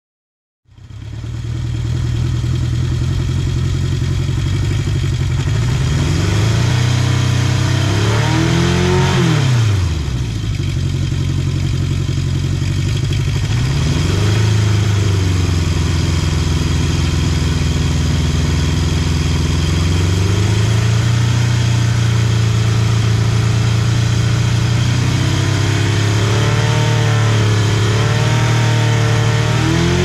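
Honda CB750 Four's air-cooled inline-four running through its exhaust, idling with throttle blips. The revs rise and fall sharply about seven to ten seconds in, briefly again around fourteen and twenty seconds, and in a few small blips near the end.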